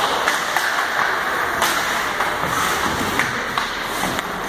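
Ice hockey play on the rink: a steady hiss with about eight scattered sharp clacks of sticks and puck.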